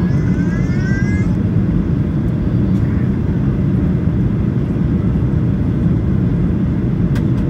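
Steady low rumble inside the cabin of a Boeing 737-800 on descent, from its CFM56-7B engines and the air rushing past, heard from a window seat over the wing. A brief rising whine comes in the first second.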